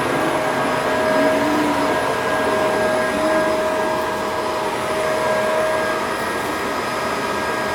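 Household vacuum cleaner running steadily: a constant, even whir of the motor with a thin steady tone over it.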